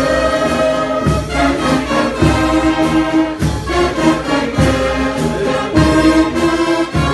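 Brass band playing praise music: trombones and trumpets holding chords, with a low beat a little under once a second.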